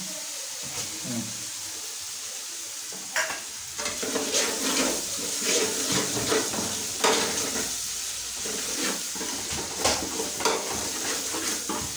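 Chopped ginger sizzling in hot oil in a pan while a spoon stirs it, scraping and clinking against the pan several times. The ginger is fried and ready for the next ingredients.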